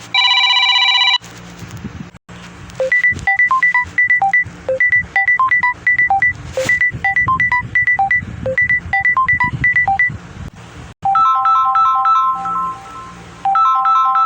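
Samsung Galaxy Note 10 ringtones playing: a steady electronic tone for about a second, then a quick melody of short, high plinking notes, and from about eleven seconds in a different chiming melody that repeats.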